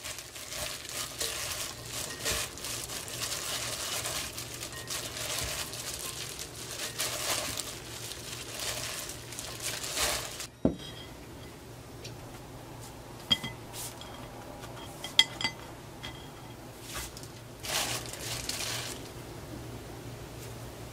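Gloved hand tossing shredded vegetables with red pepper sauce in a glass bowl: rustling of the plastic glove and wet vegetables. A sharp knock comes about halfway through. After it the handling is quieter, with a few sharp clinks and a last burst of rustling near the end.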